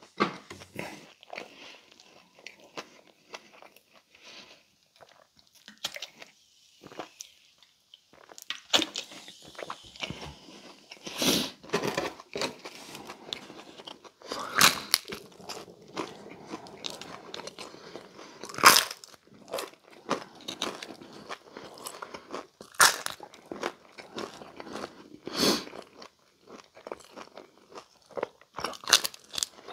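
Close-miked biting and chewing of a dry Pizza Hut Melt, a folded thin-crust pizza. Quiet chewing runs throughout, broken by a sharp crunch of the crust every few seconds.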